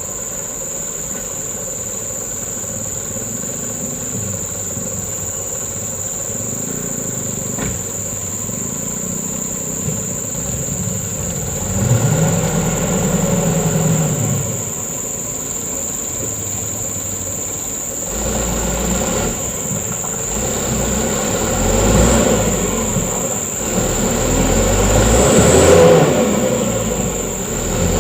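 Mitsubishi Canter truck's diesel engine working under load, pulling harder for a couple of seconds about twelve seconds in and again through the last ten seconds.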